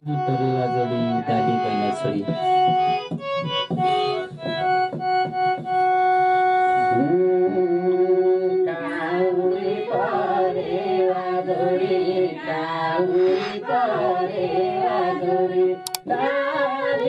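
Electronic keyboard playing a deuda folk tune in a reedy, accordion-like voice. About seven seconds in, voices begin singing over it.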